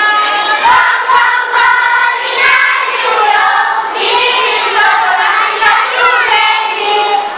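Young children singing together in chorus.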